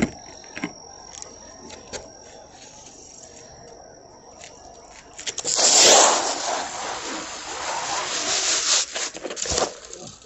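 Handling noise as the camera is adjusted: a few light clicks, then from about five seconds in a loud scraping rub on the microphone lasting about four seconds.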